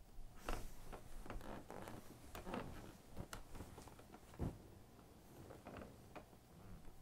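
Faint rustling and soft knocks of bedding and clothing as a person shifts and turns over on a bed, with a dull thump about four and a half seconds in.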